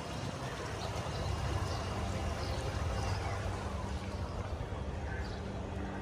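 Small passenger boat under way: its motor running with a steady low hum, and water washing and gurgling along the hull.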